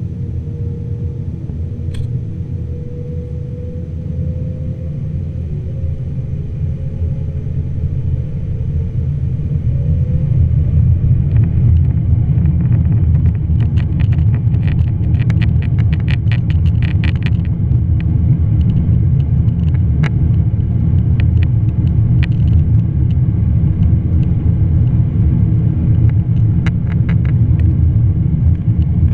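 Boeing 787-9 cabin noise as the airliner moves on the ground: a steady low rumble of its Rolls-Royce Trent 1000 engines and airframe, growing louder about ten seconds in. A faint gliding tone sounds early, and a run of light rattling clicks comes in the middle.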